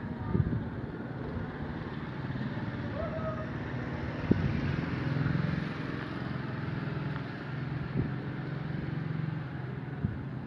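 Steady engine drone with a slight swell about five seconds in, broken by a few short knocks and bumps on the microphone.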